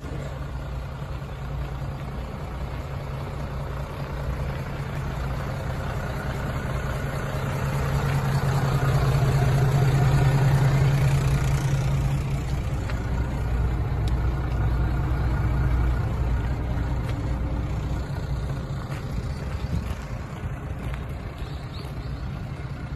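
Mitsubishi Fuso Fighter's 6M60 inline-six diesel idling steadily. It grows louder towards the middle and then fades again.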